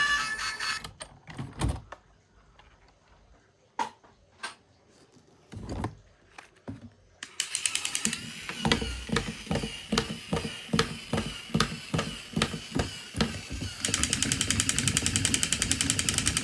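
Small plastic gear mechanism of a toy vehicle clicking: a few scattered clicks at first, then a regular ticking of about three clicks a second that turns into a much faster, louder rattle near the end.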